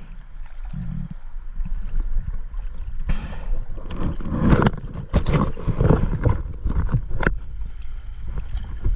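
Choppy lake water slapping and splashing at the surface right against the camera, with wind rumbling on the microphone. The splashes bunch up and get louder from about four seconds in.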